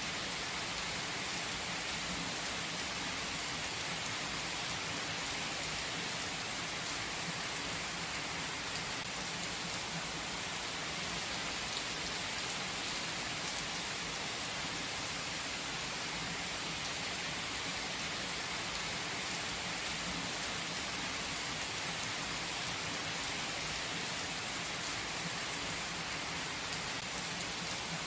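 Steady heavy rain falling: an even, unbroken hiss.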